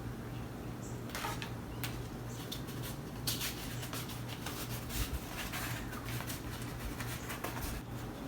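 Faint rustling and crinkling as plastic-wrapped canvas sheets are handled and unrolled, with scattered small clicks over a low steady hum.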